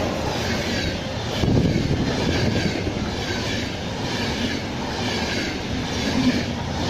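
Passenger coaches of an express train passing close at speed, their wheels clattering in a steady repeating rhythm under a continuous rushing rail noise.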